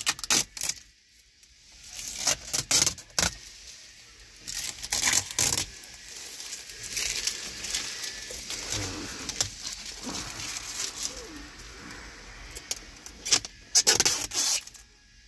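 Protective plastic film being peeled off a new car's dashboard trim, crinkling and crackling in irregular bursts, loudest about three seconds in, about five seconds in and again near the end.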